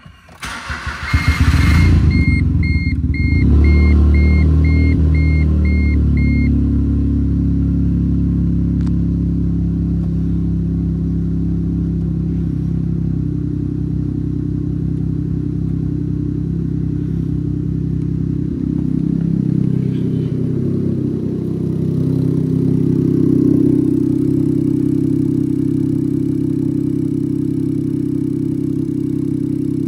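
2015 Smart Fortwo's 1.0-litre three-cylinder engine being cranked by the starter, catching within about two seconds and then idling steadily. A dashboard warning chime beeps about twice a second for the first six seconds.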